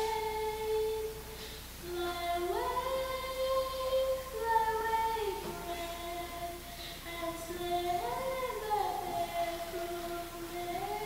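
A child singing a slow solo song in long held notes that glide from one pitch to the next, with a short breath pause between phrases about a second and a half in. There is no audible accompaniment.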